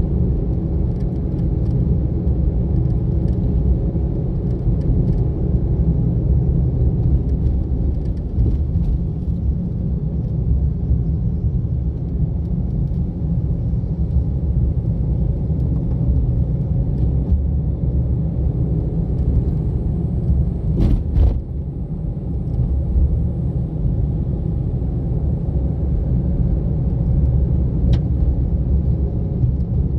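A car driving along a forest road: a steady low rumble of engine and tyres. There is a quick pair of sharp knocks about two-thirds of the way through and a single click near the end.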